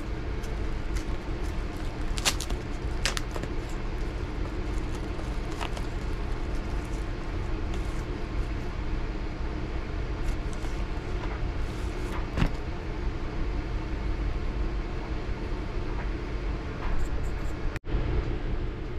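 A mail package being opened by hand: a few scattered clicks and rustles of handling over a steady low machine hum.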